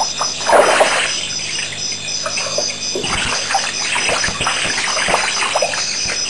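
African elephant drinking: water sloshing as the trunk draws from the pool, then splashing and dribbling in many short drips from about three seconds in as the trunk is lifted to the mouth and water runs from it.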